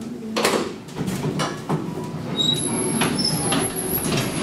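Elevator car stopping and its steel sliding doors opening, with a sharp clunk about half a second in, then clanks and rattling, and a thin high squeal over the second half.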